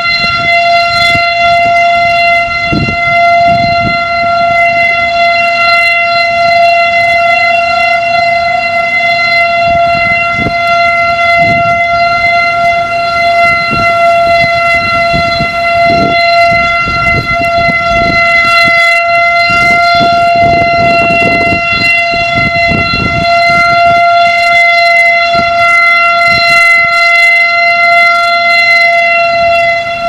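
Federal Electric Type B outdoor warning siren sounding a full-alert steady tone, loud and holding one pitch with many evenly spaced overtones.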